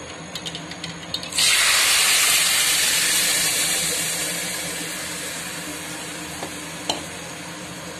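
Mustard seeds crackling in hot oil and ghee. About a second and a half in, cooked moong dal is poured into the hot tempering and sets off a sudden loud sizzle that slowly dies down.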